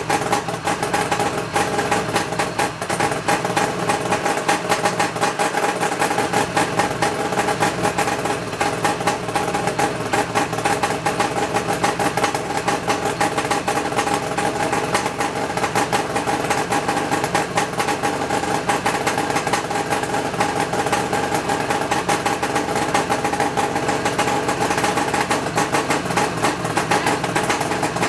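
1975 Suzuki GT550's air-cooled two-stroke three-cylinder engine idling steadily, freshly restored and on one of its first runs.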